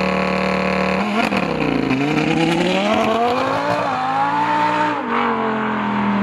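Audi R8 V10 engine running through an Armytrix titanium valved exhaust. Its revs hold steady at first, drop about a second in, then climb and ease back slowly before settling to a steady lower note.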